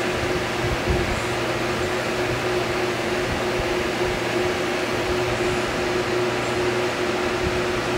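Steady hum of a running fan, with a constant mid-pitched tone over an even rush of air noise; a small thump about a second in.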